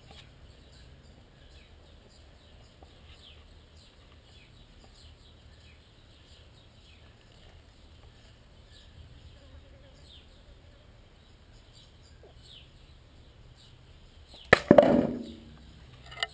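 Faint, rapid chirping of small birds, then a little over two seconds before the end a single sharp, loud knock with a short ringing tail.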